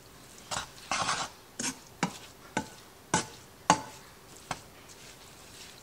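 A plastic meat chopper pressing and scraping through ground beef in a skillet: about eight short, sharp strokes roughly every half second, stopping about four and a half seconds in.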